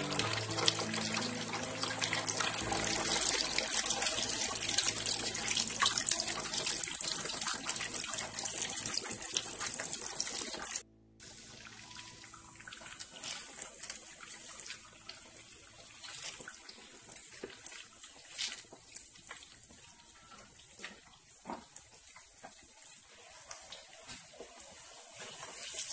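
Pempek fish cakes deep-frying in hot oil in a wok: a steady crackling sizzle that breaks off suddenly about eleven seconds in and comes back quieter, with scattered pops.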